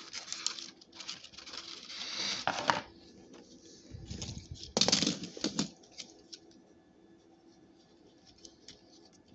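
Rustling, crackling handling noise for about three seconds, a louder scuff with a low thump about five seconds in, then faint scattered clicks.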